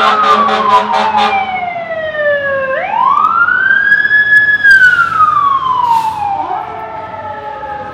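Emergency vehicle siren wailing loudly in slow cycles: the pitch rises, holds briefly at the top, then falls slowly, about two cycles in all. A fast pulsing tone sounds over it during the first second.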